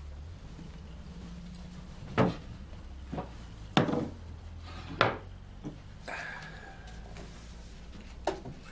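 A handful of sharp knocks and clunks, one every second or two, over a low steady hum.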